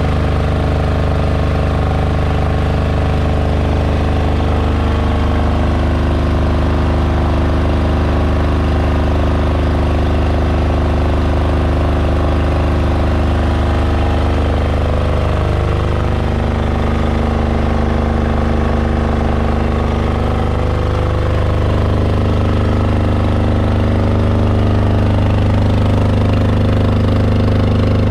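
Powerzone PDG 8700SS soundproofed air-cooled diesel generator running steadily with a constant low drone. It is under a load of about 4400 watts of lamps.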